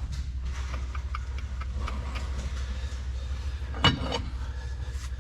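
Light metallic clicks of hand tools and parts, with one sharp metal clank about four seconds in, over a steady low hum.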